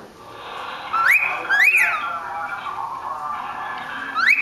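Whiteface pied cockatiel whistling its song: a rising note and then a rise-and-fall note about a second in, and another rising note near the end.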